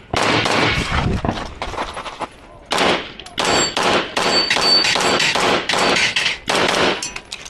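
Rapid pistol fire: quick strings of shots with echo, broken by a short pause about two seconds in, then more fast strings until near the end.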